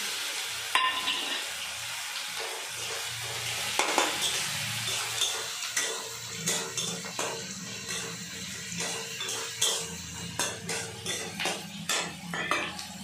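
Onions and ginger-garlic paste frying in oil in a kadai, sizzling steadily, while a metal spatula stirs them with repeated scrapes and clinks against the pan, more often in the second half.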